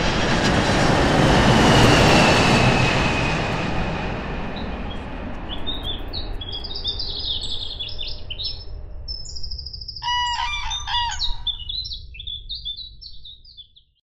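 A broad rushing noise swells, peaks about two seconds in and slowly fades. From about halfway, small birds chirp and twitter in quick high notes, with a louder call of several pitches about ten seconds in. Everything cuts off just before the end.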